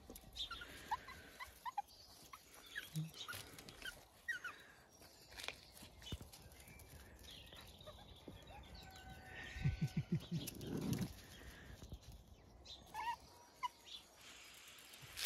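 Puppies squeaking and whimpering faintly in short, high chirps, with a louder, lower, drawn-out animal call about ten seconds in.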